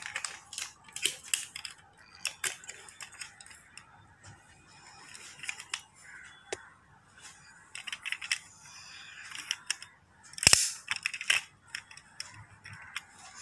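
Clicks and taps of a die-cast metal toy Chevrolet being handled, its doors swung open, with one louder knock about ten and a half seconds in.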